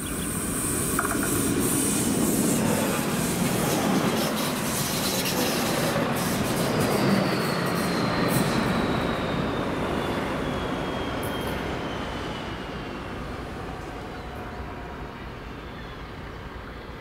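DB Class 650 Regio-Shuttle diesel railcar passing close by, its engine and wheels running on the rails, then fading as it draws away. A thin high whistle falls in pitch as it goes past.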